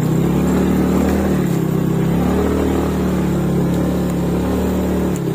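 A small engine, most likely a motorcycle's, running steadily at low revs, its pitch wavering slightly up and down.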